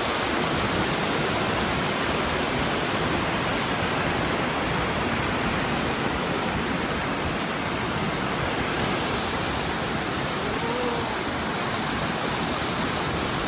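Floodwater from a river that has burst its banks, rushing in a steady, unbroken noise.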